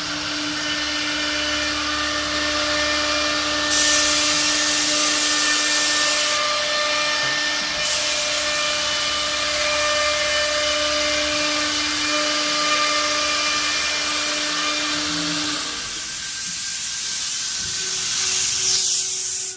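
Woodworking CNC router spindle running at high speed while the bit cuts, a steady whine with a hissing cutting noise that grows louder about four seconds in. The whine fades near the end and the machine stops abruptly.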